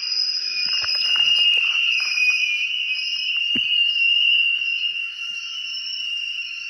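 A steady, high-pitched buzzing drone, with a few short clicks and knocks in the first half.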